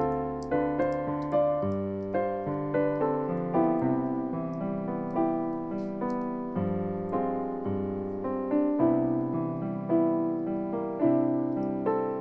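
Piano music: a steady run of single notes and chords, each struck and left to fade, about one to two a second.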